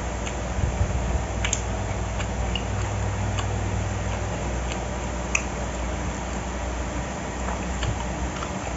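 A person eating squid, with scattered small clicks and smacks of chewing and handling food, over a steady low hum.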